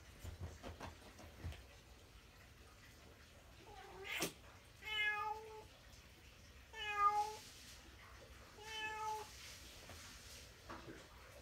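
A domestic cat meows three times, about two seconds apart, starting about five seconds in. Before the meows come a few soft knocks early on and a single sharp click.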